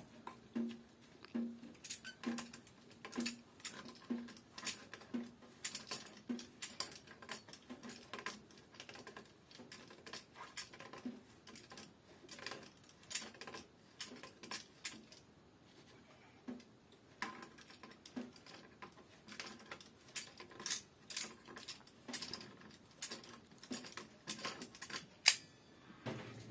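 An irregular run of small, sharp clicks and clinks, coming in clusters with quieter stretches between.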